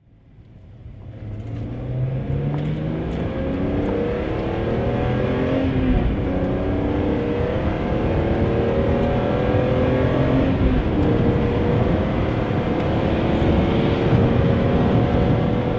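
BMW E46 M3's S54 straight-six heard from inside the cabin under hard acceleration, its intake sound rising in pitch through each gear and dropping back at each upshift, several times over.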